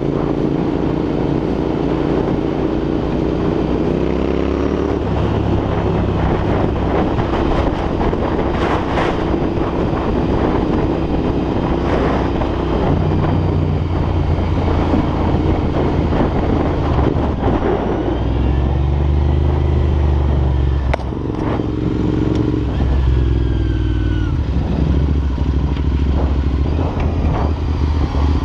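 Royal Enfield Interceptor 650 parallel-twin engine running through aftermarket Red Rooster exhausts on the move, its revs rising and falling in steps. Wind rushes over the microphone throughout.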